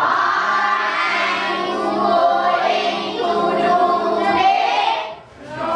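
A group of children saying an English sentence aloud together in unison, many young voices in one long chorus that stops about five seconds in; the sentence is "What are you going to do today?"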